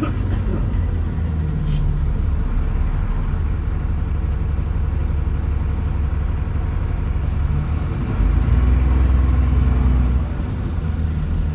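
ADL ALX400 Trident double-decker bus's diesel engine running with road rumble as it drives along, heard from inside the upper deck. The engine grows louder for about two seconds near the end.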